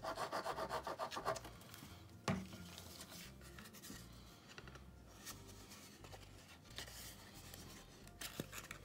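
Glue bottle's tip scratching quickly across cardstock tabs, then a single sharp tap a little past two seconds in, followed by faint rustling of cardstock being folded into a box.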